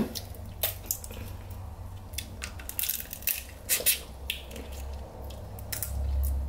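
Dungeness crab shell cracking and crunching as it is broken apart by hand and bitten: a string of sharp, irregular cracks.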